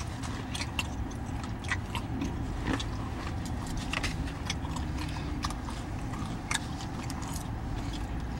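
A person chewing and biting takeout food, with scattered light clicks and taps from a plastic fork and a plastic takeout bowl, over a steady low background rumble.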